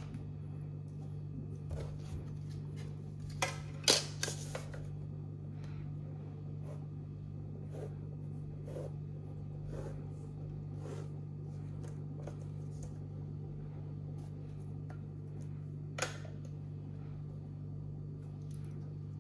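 Plastic set square and pen handled on a drafting board while drawing a line: light clicks and scrapes, with sharper knocks about four seconds in and again near sixteen seconds. A steady low hum runs underneath throughout.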